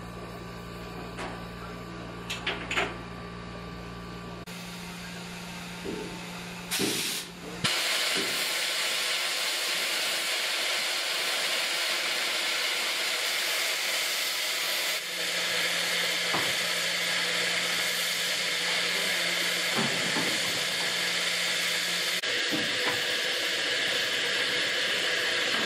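Peppercorn A1 steam locomotive standing in steam, a low steady hum with a few clicks at first. After a short burst about seven seconds in, a loud, steady hiss of escaping steam sets in and carries on.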